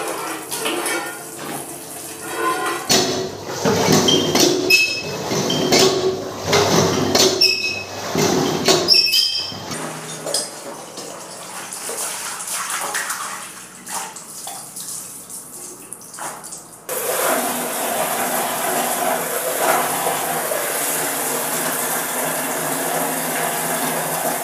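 Steel dishes clattering and ringing as they are washed under a running tap. From about two-thirds of the way in comes a steady rush of running water.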